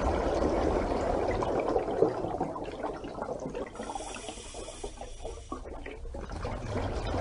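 Steady rushing-water sound effect, a dense wash of water noise that eases off in the middle and swells again near the end.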